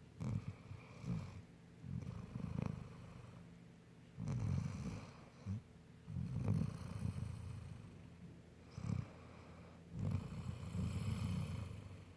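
Golden retriever snoring in its sleep: a low, rough snore on each breath, repeating at an uneven pace about every one to two seconds.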